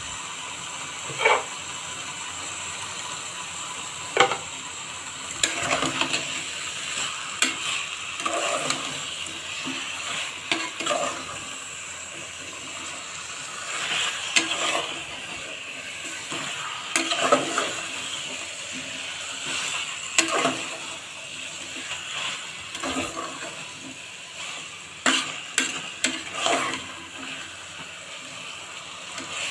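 Chicken pieces sizzling as they fry in masala in an aluminium pressure-cooker pot, with a metal spatula stirring them and scraping and knocking against the pot every second or two.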